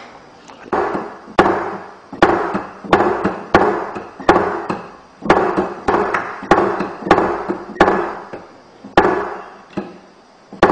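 A run of sharp strikes, about two a second at an uneven pace, each ringing out briefly with a pitched tone.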